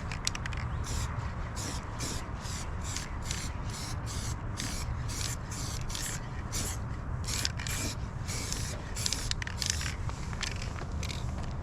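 Aerosol spray can hissing in quick short bursts, about three a second, as the nozzle is pressed and released over and over.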